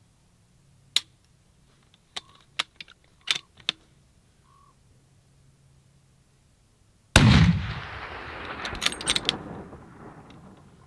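A single hunting rifle shot from the prone position: one sudden loud crack whose echo rolls away over about three seconds. A few sharp clicks follow about two seconds after the shot.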